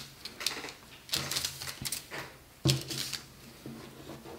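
Kitchen twine being pulled and arranged over parchment paper and a wooden tabletop: several short, irregular scratchy rustles of string and paper.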